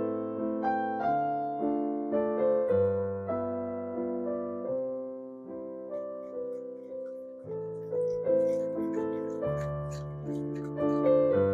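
Background piano music: a gentle melody of struck notes that fade, over low bass notes.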